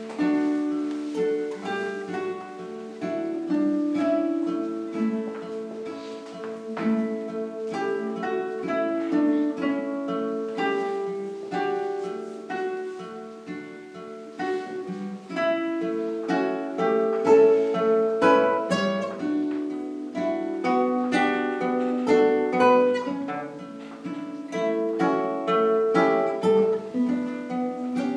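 Two classical guitars playing a duet, a steady flow of plucked notes and chords that grows somewhat louder about two-thirds of the way through.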